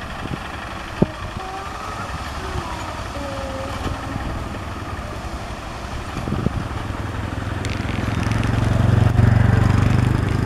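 Single-cylinder diesel engine of a two-wheel hand tractor running steadily while it works the field, with a fast even chug; it grows louder over the last few seconds.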